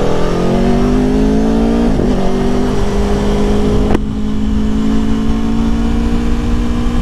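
2021 Aprilia Tuono motorcycle engine accelerating hard from a standstill. Its pitch climbs, drops at an upshift about two seconds in, climbs again, and drops at a second upshift with a click about four seconds in. It then holds a steady, slowly rising note as the bike gathers speed.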